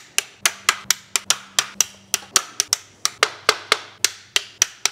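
Hand ratchet clicking in an even run, about four sharp clicks a second, as the fasteners of an aluminium T-slot frame are run in.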